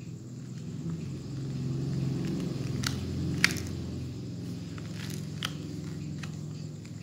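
Samsung SGH-T249 slide phone handled in the hand, its plastic case and slider giving a few sharp clicks, the loudest about three and a half seconds in, over a steady low hum.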